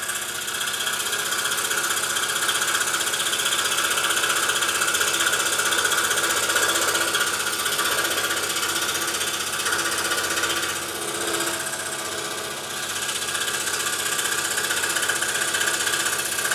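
Scroll saw running, its fine Flying Dutchman puzzle blade reciprocating fast and steadily as it cuts through taped layers of 1/4 inch and 1/8 inch Baltic birch plywood. It eases slightly for a moment a little past the middle.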